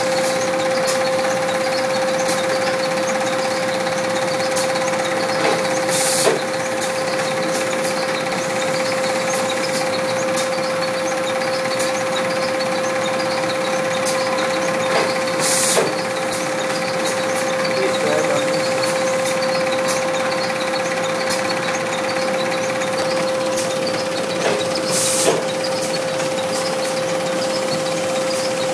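Sheet-feeding machine with a roller conveyor running, a steady hum at one constant pitch with light scattered clicks. A short hiss comes three times, about every nine to ten seconds.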